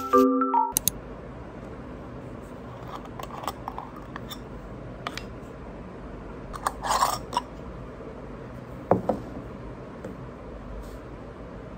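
A light mallet-percussion tune cuts off under a second in, then hands handling cosmetic jars and a tube: faint clicks and taps, a short scraping rustle about seven seconds in and a sharp knock about nine seconds in, over a steady low room hum.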